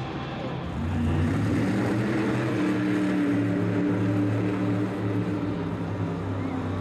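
Monster truck's supercharged V8 engine running hard, getting louder about a second in and then holding a steady drone.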